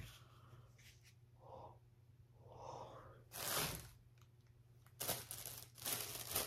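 Faint rustling and tearing of packaging as a box is opened by hand, in several short spells, with a couple of soft breaths early on.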